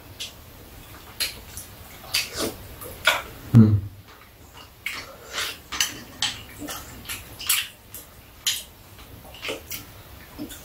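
Metal spoons clinking and scraping against bowls and a metal serving tray during a meal: a scatter of sharp clicks about once a second, with one louder knock a little over three and a half seconds in.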